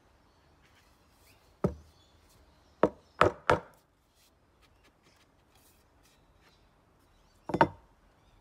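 Hults Bruk axe, a steel head on a wooden handle, knocked against a wooden bench: four sharp knocks between about one and a half and three and a half seconds in, then a quick double knock near the end.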